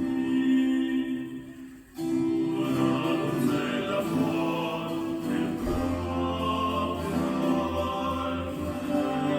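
Music with singing played back through Kenwood CM-7ES compact speakers driven by a Sony STR-DE197 receiver. Long held notes dip almost to nothing about two seconds in, then resume, and a low bass part comes in a little past the middle.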